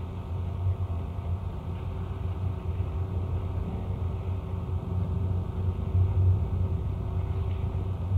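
Experimental noise music from a cassette release: a dense, churning low rumble with a faint steady tone above it, swelling a little louder past the middle.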